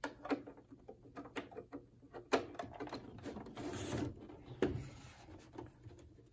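Plastic floppy-drive cases being handled and shifted while a power plug is fitted: a run of irregular clicks and knocks, with a brief scraping rustle about four seconds in and sharper knocks just before and just after it.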